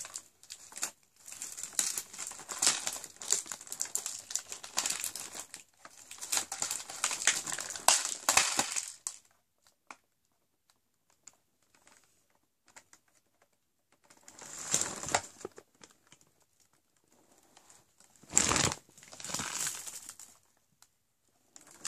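Plastic packaging crinkling and rustling as a small toiletry gift from an advent calendar is handled and unwrapped, in several bouts with a quiet pause of a few seconds in the middle. A dull knock comes near the end.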